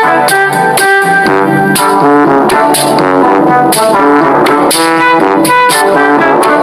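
Background music: brass instruments playing a melody over a steady beat.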